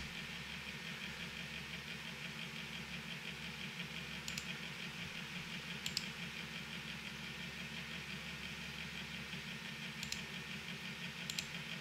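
Steady low electrical hum with faint hiss, broken by four short computer-mouse clicks about 4, 6, 10 and 11 seconds in.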